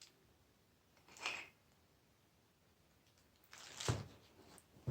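Quiet handling noises from the metal door-closer parts being moved about: a short scrape about a second in, then a longer rustle that ends in a sharp click near the end.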